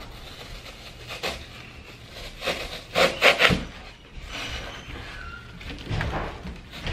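Artificial flower stems and leaves rustling and crackling as they are handled and worked into the arrangement, with a cluster of louder, sharp crunches about three seconds in and smaller ones near the start and end.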